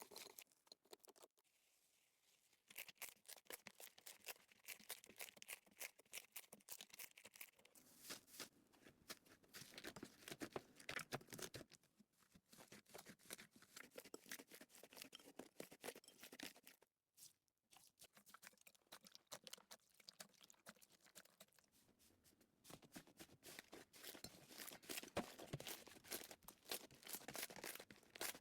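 Slime being squeezed and worked by hand, giving a faint, dense run of crackles and small pops, with brief pauses about two seconds in and again around seventeen seconds.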